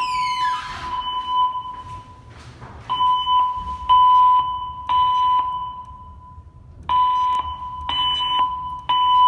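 System Sensor fire alarm speaker strobes sounding the temporal-three evacuation signal. A steady beep tone holds at first, then comes in groups of three short beeps about a second apart, with a longer pause between groups. A brief falling whine sweeps down at the very start.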